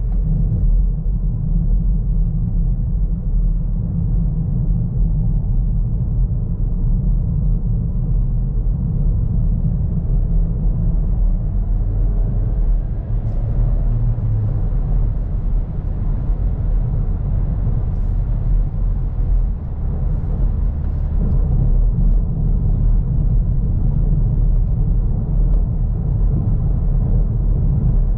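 Steady low rumble of engine and tyre noise inside the cabin of a Skoda Karoq with a 1.5 TSI turbocharged four-cylinder petrol engine, driving at speed.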